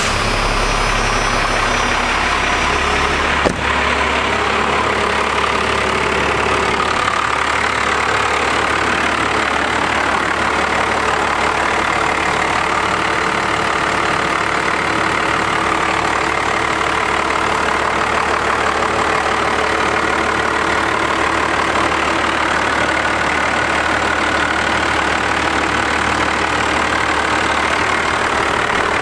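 Cummins turbo-diesel with compound turbos and a new HX35 turbocharger, idling steadily just after start-up, with one sharp click about three and a half seconds in. The idle has none of the tick of an exhaust leak.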